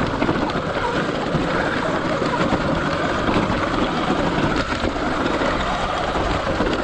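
Sur Ron X electric dirt bike climbing a loose rocky trail: a steady motor whine mixed with the crunch and rattle of the tyres and bike over the stones.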